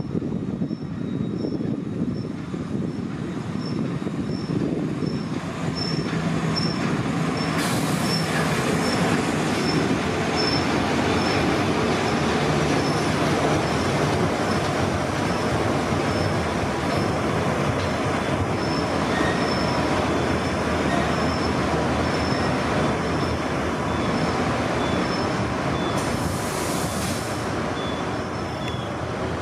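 Train running on the tracks through a station, a steady loud rumble of wheels on rail with a faint high squeal pulsing a little under twice a second. Short bursts of hiss about eight seconds in and again near the end.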